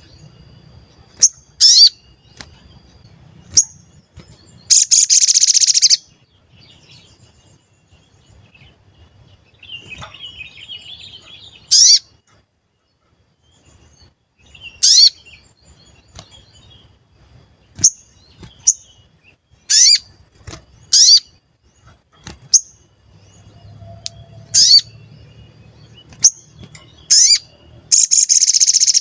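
A sogon bird calling: sharp, high 'cuit' chirps, many sweeping steeply down in pitch, given singly or in quick pairs at irregular gaps. Two longer, harsh, buzzy rattles come about five seconds in and again near the end.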